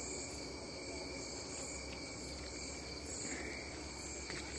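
Crickets trilling steadily in several overlapping high tones.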